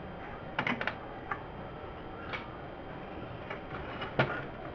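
Light clicks and taps from small tools and the metal receiver case being handled on a workbench, over a steady background hiss: a quick cluster of about three clicks about half a second in, a couple of single taps after, and the sharpest knock near the end.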